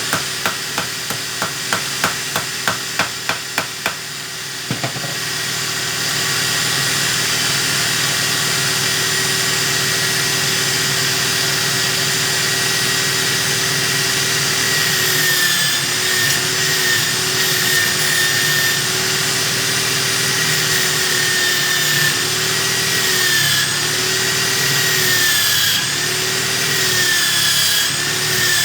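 A small electric power tool's motor running steadily with a high whine. From about halfway through, its pitch dips and recovers over and over as it is loaded in the work. The first few seconds hold a rapid, regular clicking.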